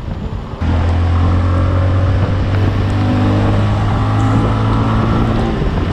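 Bajaj Avenger's single-cylinder engine running steadily while riding, under an even hiss of road noise. It comes in suddenly about half a second in.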